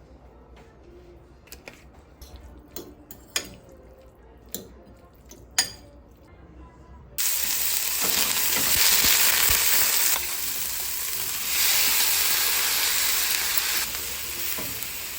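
A few sharp kitchen knocks and clicks, then, about seven seconds in, a loud steady sizzle starts suddenly as food frying in a hot pan, plainly the tofu and chickpeas for a wrap, carrying on to the end.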